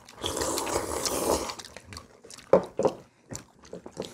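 A person slurping kimchi kalguksu noodles in one long slurp of about a second and a half, followed by chewing and small clicks of metal chopsticks.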